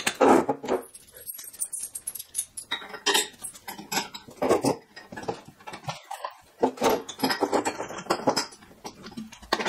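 Irregular metallic clinks and rattles of big bolts, nuts and washers being handled and fitted to bolt a plow bracket onto the front of a riding mower.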